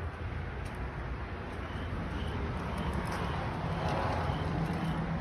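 Steady low rumble and hiss of a vehicle, with faint high beeps about twice a second starting about two seconds in.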